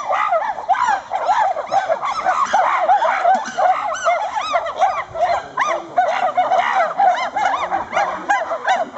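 A chorus of many animals calling at once: short, overlapping hoots that rise and fall in pitch, several a second, running on without a break.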